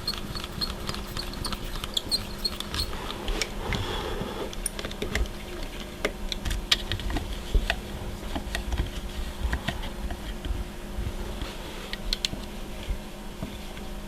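Scattered light clicks and taps over a faint steady hum from a Proxxon MF70 micro milling machine as its table is moved across by hand.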